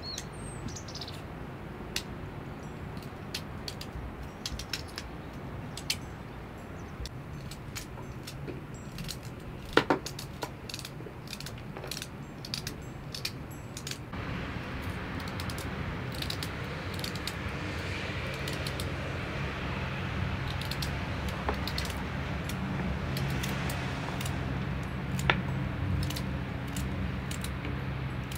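Kitchen knives peeling and cutting vegetables by hand: many small clicks and scrapes of blades on roots and carrots. A small bird chirps briefly at the start, and a steady low hum comes in about halfway.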